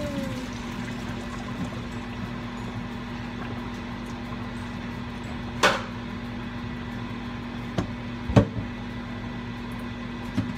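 Steady hum of a running kitchen appliance with a fixed low tone, and a few sharp knocks of things being handled, the loudest a little past the middle.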